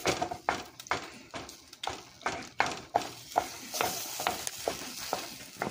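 A utensil mashing and stirring roasted cherry tomatoes and feta into a paste in a baking dish: irregular soft taps and scrapes against the dish, about three a second.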